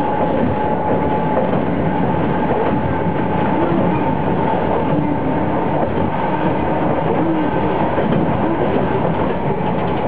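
Japanese streetcar running along its line, heard from inside the car: the drone of its nose-suspended traction motors and the wheels rolling on the rails, with a steady whine.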